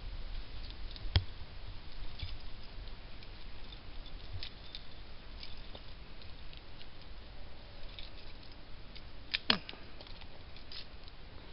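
Hands working a trail camera's mounting strap and buckle against a tree trunk: light rustling with scattered small clicks, and two sharper clicks, one about a second in and one near the end.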